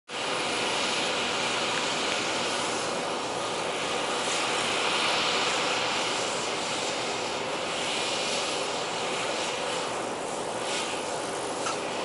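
John Deere W540 combine harvester running steadily while harvesting grain: an even, unbroken drone of engine and threshing machinery.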